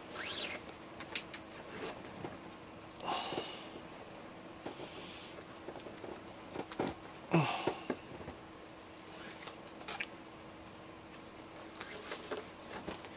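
Nylon 550 paracord rustling and swishing as it is pulled through and snugged around a knife-handle wrap, with soft handling clicks. Several short swishes come and go, the loudest about seven seconds in.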